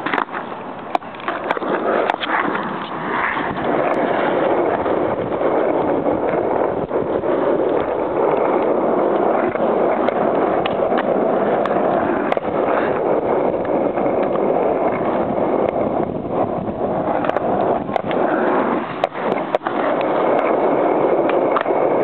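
Skateboard wheels rolling on an asphalt court, a steady rumbling roll throughout, broken by scattered sharp clacks of the board.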